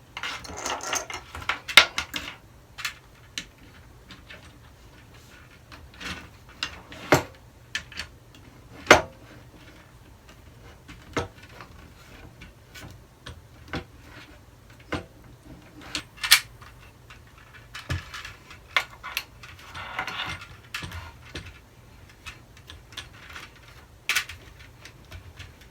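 Irregular clicks, knocks and rattles of plastic and metal parts as a ring light is fitted onto its tripod stand and screwed tight, with short bursts of scraping or rustling in between.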